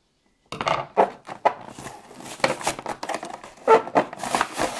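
Cardboard toy box and its plastic packaging being cut and torn open by hand: a dense run of crackles, rustles and crinkles that starts about half a second in.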